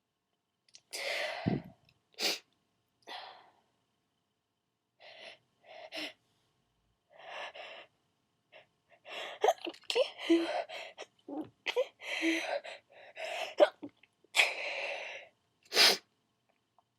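A person sneezing, with gasping in-breaths between the sneezes. After one short, sharp sneeze early on and a few quiet breaths, a run of several sneezes and gasps follows in the second half, the loudest near the end.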